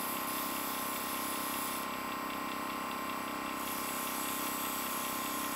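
Dinair airbrush makeup gun spraying blush in a steady hiss, over the hum of its air compressor; the hiss changes in tone for a moment near the middle.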